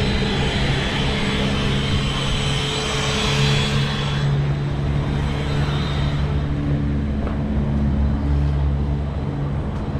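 A motor engine running steadily close by with a low hum, over street noise; a louder hiss dies away about four seconds in.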